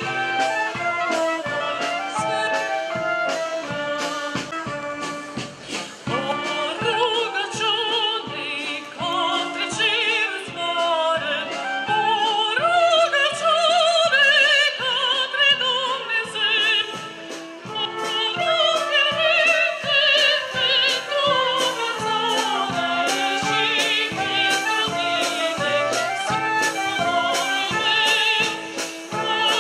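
Music: a high female voice singing in operatic style with strong vibrato, over instrumental accompaniment with a regular beat.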